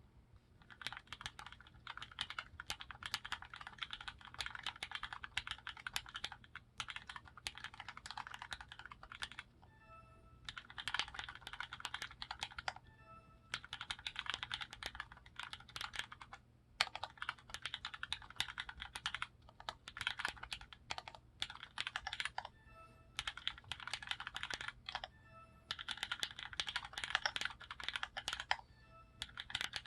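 Typing on a custom mechanical keyboard with lubed Cherry MX Black linear switches, fitted with 57 g springs, and GMK doubleshot keycaps: fast runs of keystrokes broken by several brief pauses.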